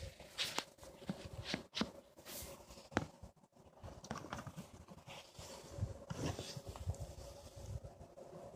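Irregular sharp clacks and knocks of deer antlers being rattled together to imitate fighting bucks, with rustling of camo clothing. The loudest clack comes about three seconds in.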